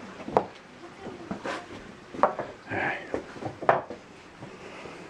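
Footsteps and scrambling over the rocky floor of a limestone cave: scattered knocks, scuffs and a few sharp clacks, about four of them standing out over the few seconds.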